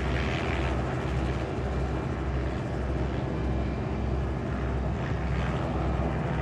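Light aircraft's piston engine and propeller running steadily: a low, even drone with a fine flutter.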